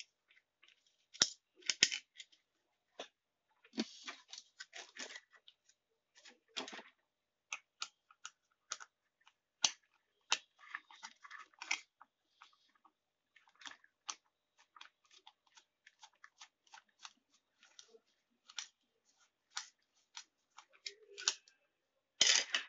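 Small metal clicks, taps and scrapes of hand tools and an aluminium heatsink being worked on an amplifier circuit board, coming irregularly throughout.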